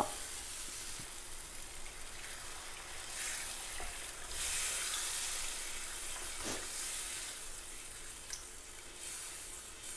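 Onion-tomato masala sizzling in a hot frying pan as water is poured in from a plastic bottle and stirred in with a wooden spatula. The hiss grows louder about three seconds in.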